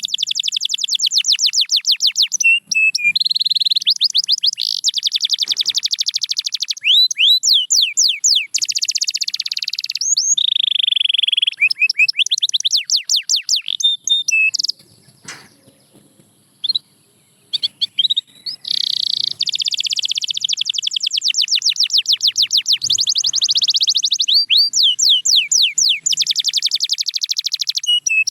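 Canary singing: long, fast trills and rolls of repeated high notes, broken by a few swooping notes, with a pause of about two seconds a little past the middle.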